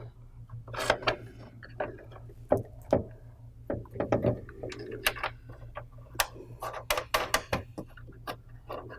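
Two nuts being threaded by hand onto the studs holding a humidifier drain pan: a string of irregular light clicks and taps from metal and plastic parts being handled.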